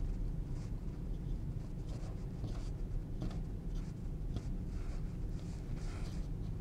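Thin paintbrush stroking acrylic paint onto a canvas panel: a run of short, faint brushing strokes at an uneven pace, over a steady low hum.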